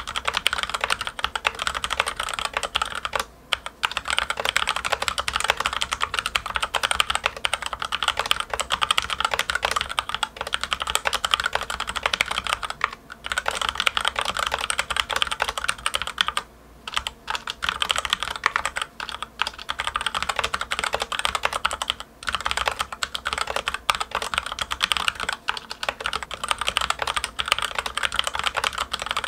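Continuous fast typing on a Logitech K835 TKL mechanical keyboard with TTC Red linear switches and OEM-profile ABS keycaps: a dense, crisp clacking of keystrokes with a few brief pauses. There is little spring ping or hollow case ring, but the keystrokes are somewhat noisier than Cherry Red switches.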